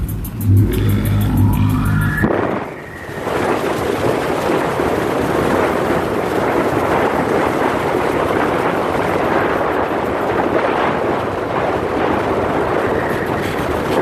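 Music with a heavy bass beat for about the first two seconds cuts off suddenly. It gives way to the steady rushing of a vehicle driving on a snowy road: tyre and wind noise.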